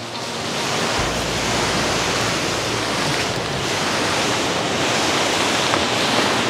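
Steady rushing of a mountain river rapid, water pouring over rocks, with a low rumble of wind on the microphone in the first few seconds.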